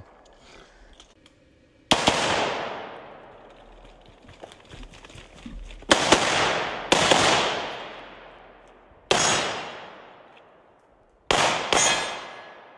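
Six gunshots, each trailing off in a long echo: one about two seconds in, a pair about a second apart near the middle, one more, then two close together near the end.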